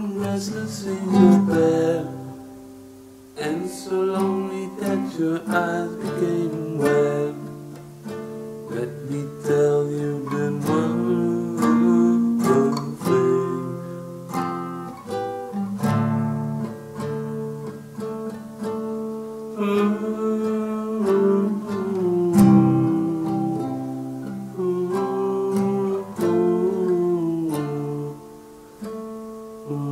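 Solo acoustic guitar playing an instrumental break: a picked melody mixed with strummed chords, without vocals.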